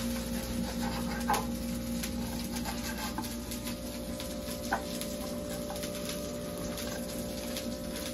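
Butter melting in a clay cazuela, sizzling faintly with a fine, even crackle over a steady low hum, with two light knocks, about a second in and near the middle.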